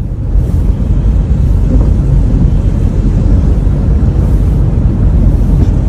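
A car driving through deep floodwater, heard from inside the cabin: a steady, loud rush and churn of water against the car, with a low rumble.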